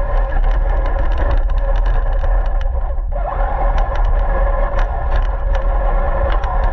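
RC car running with its motor giving a steady whine, over heavy rumble and scattered sharp ticks and rattles from the chassis on the ground. About three seconds in the motor briefly drops off, then picks up again.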